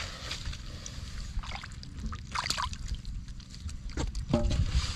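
Shallow muddy water sloshing as hands work through it hunting catfish, with short splashes about a second and a half in, around two and a half seconds, and again near the end, over a steady low rumble.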